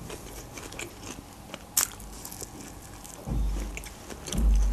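Close-miked chewing of Turkish flatbread, with soft mouth clicks and a sharp crunch about two seconds in. Two dull low thuds come in the last second and a half.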